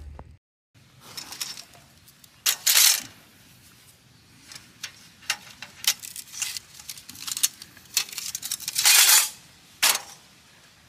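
Cooking utensils and dishes clinking and tapping during camp cooking, with many short sharp clicks. Two brief loud hissing rustles come about two and a half seconds in and again near the end.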